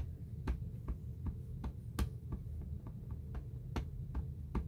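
StazOn ink pad dabbed repeatedly onto a rubber stamp: quick light taps, roughly three a second and unevenly spaced, over a steady low hum.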